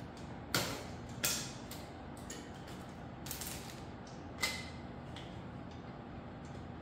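Scattered sharp clicks and knocks of hands working on a folding electric bike during unpacking and assembly: four louder knocks spread over a few seconds, one with a short scrape, among fainter ticks.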